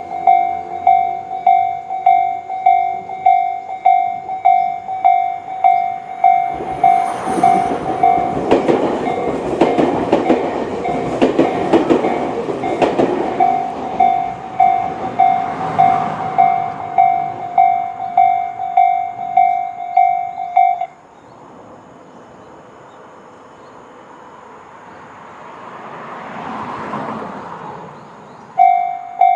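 Japanese level-crossing warning bells (Tobu 'C' tone, slow-tempo type) dinging about twice a second while an electric train runs through the crossing with wheel clacks, loudest for several seconds near the start. The bells stop about two-thirds of the way in and start dinging again shortly before the end, as the crossing warns again.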